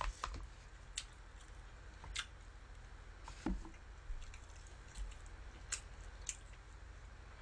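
Quiet eating sounds: soft chewing with a handful of short, light clicks of metal chopsticks against the plate, spread a second or so apart.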